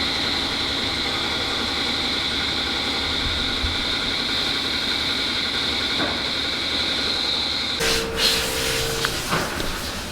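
Steady mechanical whine and hiss of metalworking machinery, with a high whine over a dense rumble. It cuts off abruptly about eight seconds in, followed by a brief lower hum and a few knocks.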